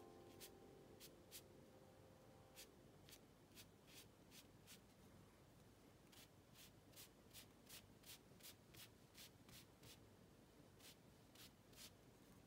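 Faint, brisk strokes and dabs of an ink brush on paper, a series of soft scratchy swishes, sometimes about three a second, with short pauses between runs.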